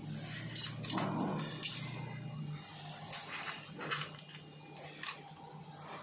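Scattered small metallic clicks and taps as a hex key and steel brake cable are worked on an electric scooter's rear disc brake caliper, over a steady low hum.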